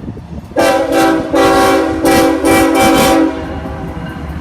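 BNSF freight locomotive's multi-chime air horn, played as about four short blasts run close together over roughly three seconds, a chord of several tones sounded for the railfans in a horn show. A low rumble comes up near the end.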